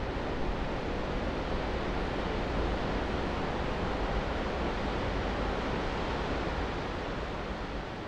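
Steady, even rushing noise with no music or tones in it, gently fading about seven seconds in.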